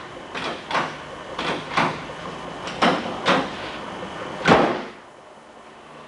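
A series of irregular thuds, several coming in pairs, the last and loudest about four and a half seconds in.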